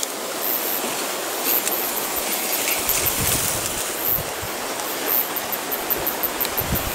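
Long grass and leaves rustling and scraping against the camera as a person crawls through them on hands and knees, a steady scratchy swish with a few soft low knocks.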